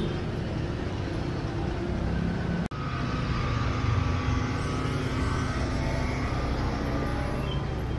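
Street traffic: passing vehicle engines and road noise as a steady low rumble, cut off for an instant about two and a half seconds in.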